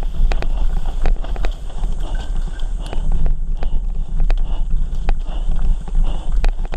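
Mountain bike descending a rough dirt trail: a steady low rumble of tyres and wind, with frequent sharp rattles and knocks from the bike over bumps.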